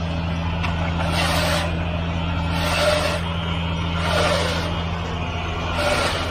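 An aluminium straight edge scrapes across wet concrete in short swishes about every second and a half. Under it, a diesel truck engine runs with a steady low drone.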